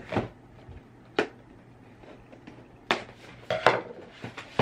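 Cardboard box being handled on a tabletop as its lid is lifted off the inner box. There are a few separate sharp knocks and taps, with two or three close together near the end.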